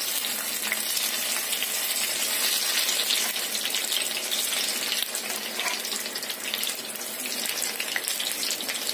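Besan-battered brinjal slices frying in hot oil in a pan: a steady sizzle with fine crackling.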